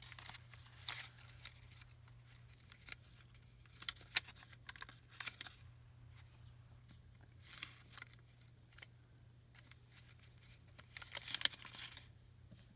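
Paper rustling and crinkling with scattered small clicks and taps as craft papers and a rubber stamp are handled, over a steady low hum.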